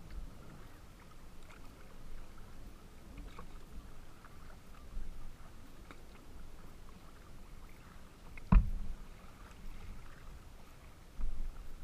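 Water lapping and slapping against the polyethylene hull of a Wilderness Systems Pungo 140 kayak moving through choppy water, over a steady low rumble. A single sharp knock on the hull about two-thirds of the way through, and a smaller bump near the end.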